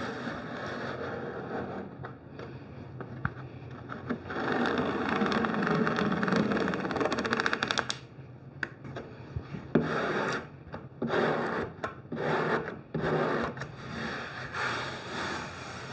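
A plastic Bondo scraper rubbing across textured paper wallpaper laid on adhesive, pressing it down and working out air bubbles. There is a long continuous stretch of scraping, then a run of short separate strokes in the second half.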